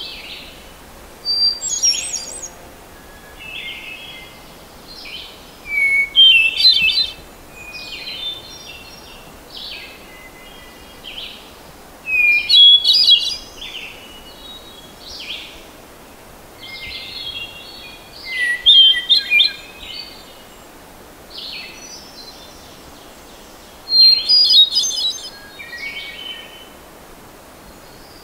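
Hermit thrush singing: short separate phrases, each a held note followed by a quick run of higher notes, with the loudest phrases coming about every six seconds and softer ones between.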